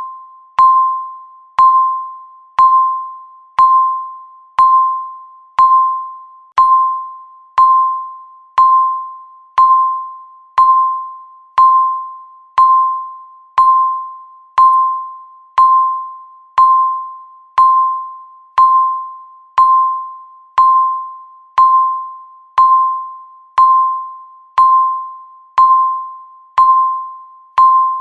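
Countdown timer beeps: a single pitched electronic tone struck once a second, each starting sharply and ringing away before the next, every beep marking one second ticked off.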